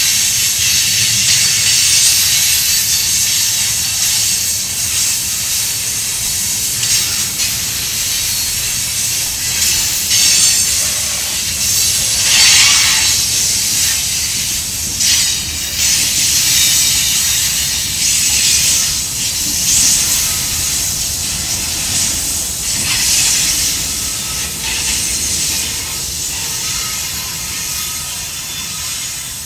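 Freight train of tank cars rolling past: a steady hiss and rumble of steel wheels on rail, swelling each time a set of trucks goes by, then the rear GE distributed-power diesel locomotives passing as the end of the train goes by and the sound eases off near the end.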